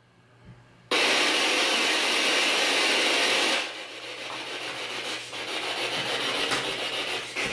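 Spirit box static: a radio-sweeping ghost box hissing. The static cuts in suddenly about a second in, runs loud for a couple of seconds, then drops to a quieter, fluttering hiss.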